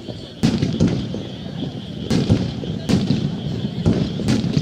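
Aerial firework shells bursting in a starmine barrage: about six sharp booms, some in quick pairs, each followed by a rumbling echo.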